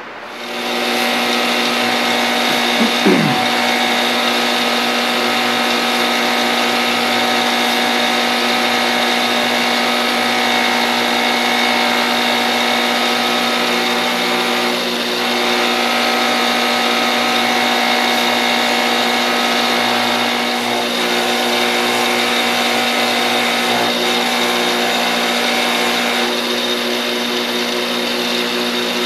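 Central Machinery 6-inch bench buffer spinning up and running steadily with a Scotch-Brite wheel, as a steel shaft is held against the wheel to polish it. The motor's steady hum shifts slightly in level a few times while the part is worked.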